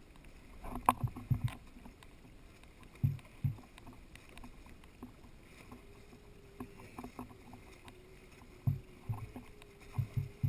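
Muffled low knocks and thumps at irregular intervals from a small boat on the open sea, heard through a GoPro's sealed dive housing. A faint steady hum comes in about halfway.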